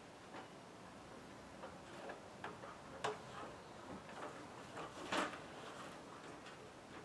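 Scattered light clicks and knocks at irregular intervals, the loudest about three seconds in and just after five seconds.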